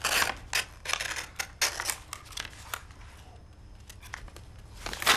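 A quick, irregular run of sharp clicks and rustles from objects being handled, thinning out after about three seconds, with one more loud click near the end.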